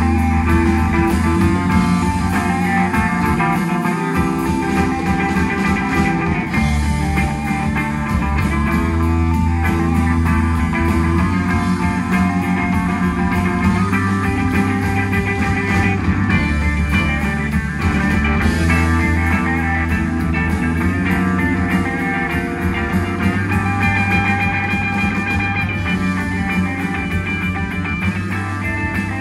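Psychedelic rock band playing, electric guitar lines over a steady bass.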